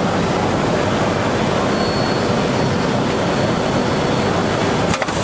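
Woodworking door-frame tenoner with circular-saw units running: a loud, steady machine noise, with a short sharp knock near the end.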